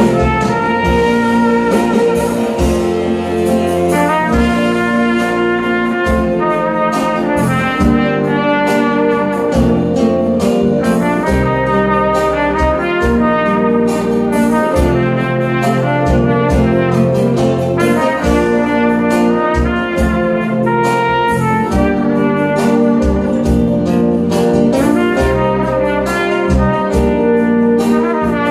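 A trumpet playing a melody over a backing track that carries bass notes and a steady beat.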